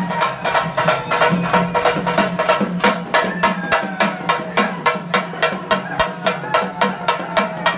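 Drums beaten in a fast, even rhythm, several sharp strokes a second, accompanying the Petta Thullal dance.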